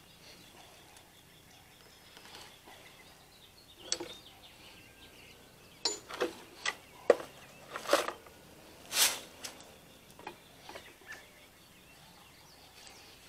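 Steel pipe wrenches clinking and knocking as they are lifted from a pile of tools and handled: about a dozen short, scattered metal knocks, the loudest about nine seconds in.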